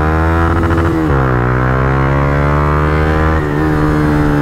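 Motorcycle engine running at steady revs under way. Its pitch dips briefly about a second in, then climbs slowly.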